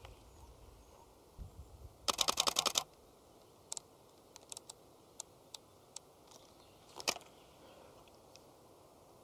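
A camera shutter firing a rapid burst of about ten frames in under a second, a couple of seconds in. A few scattered single clicks follow.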